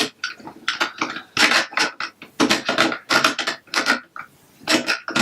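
Plastic Lego Duplo bricks and pieces clicking and clattering as they are handled and pressed together, in many short irregular knocks.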